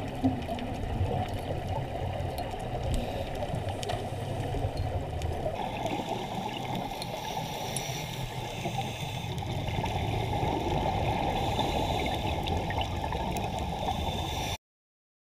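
Muffled underwater noise picked up through an action camera's waterproof housing: a steady hiss of water with no voices. It cuts off suddenly near the end.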